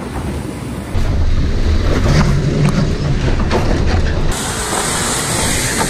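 LDV T60 Max's 2-litre twin-turbo diesel engine revving hard in low range as the ute claws up a steep dirt hill, with a little scream from the engine and scattered clicks from the tyres on dirt. A steady hiss joins about four seconds in.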